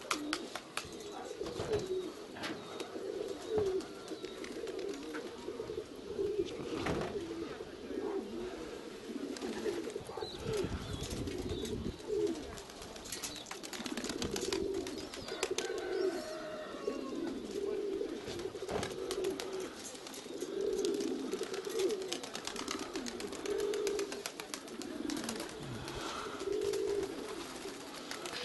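Domestic pigeons cooing over and over, several birds overlapping, with scattered sharp clicks and taps among them.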